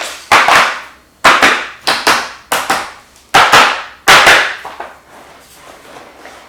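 Gaming chair base with its casters being knocked against the floor: about six sharp, loud knocks in the first four seconds, each dying away quickly, then only faint handling noise.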